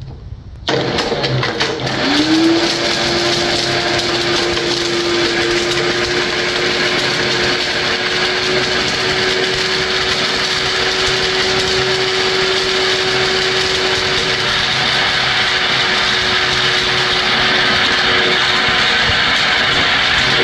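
Heavy-duty professional countertop blender switched on about a second in, its motor spinning up over a couple of seconds. It then runs at a steady high speed, chopping a hard plastic zoo animal figurine in the jar.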